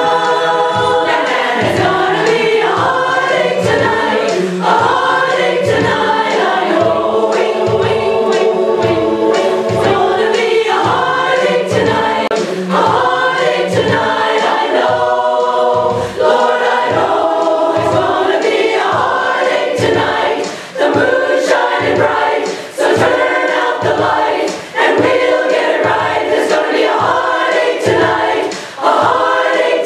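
A women's choir singing together in full voice, phrase after phrase, with brief breaths between phrases.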